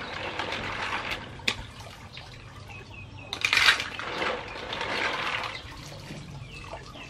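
Water sloshing and splashing as mussels are scrubbed and swished by hand in a metal basin, in irregular surges, with a sharp click of shells knocking together about a second and a half in and the loudest splash a little past the middle.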